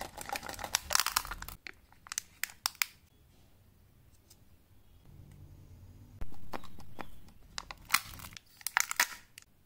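Candy wrappers crinkling and tearing as they are opened: two spells of crackling, one near the start and one near the end, each about a second and a half long, with a few sharp clicks in between.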